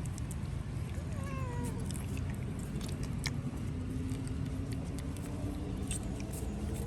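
A puppy gives one short whimpering cry that falls in pitch, about a second in, with a few faint clicks over a steady low background rumble.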